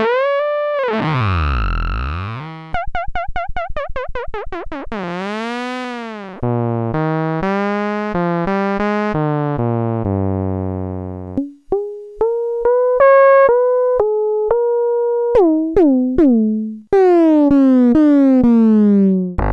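Software synthesizer driven by the Hindmarsh-Rose neuron model (the NeuronoiZ app) sounding buzzy electronic tones that glide up and down. It plays a fast run of clicks about three seconds in, then a row of sharply started stepped notes, and ends on a falling glide.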